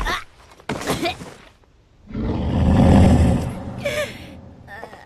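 Cartoon sound effects of a drunk woman gagging and groaning in her throat, then a loud low rushing rumble that swells about two seconds in and fades over the next two seconds.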